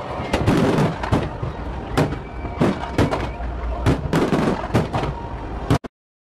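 Fireworks display: many sharp bangs of bursting aerial shells, two or three a second, over a continuous dense din and low rumble. The sound cuts off abruptly near the end.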